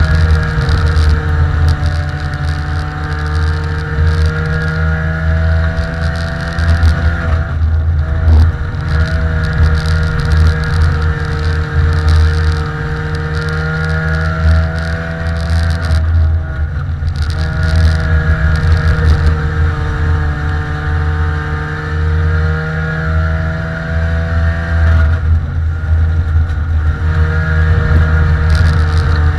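Compact dirt-track race car's engine heard from inside the cockpit, running hard and loud with its pitch rising and falling slowly. Three times, about nine seconds apart, the note drops away briefly as the throttle is lifted for the turns, then picks up again.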